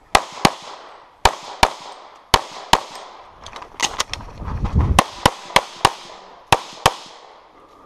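Pistol shots fired in rapid strings, about fifteen in all, mostly in quick pairs about a third of a second apart: two hits per target during a timed practical shooting course of fire. A low rumble runs under the shots around the middle.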